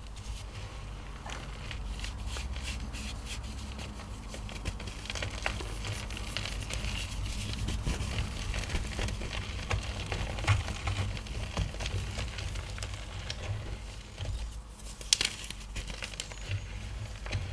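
Blocks of gym chalk being crushed and crumbled by hand: a steady stream of small crunches and crackles, with a sharper crunch about fifteen seconds in.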